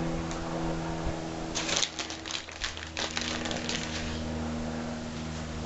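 Plastic bag of shredded mozzarella crinkling as a hand rummages in it: a cluster of rustles and small clicks from about one and a half to four seconds in. Under it runs a steady low drone of an airplane passing overhead.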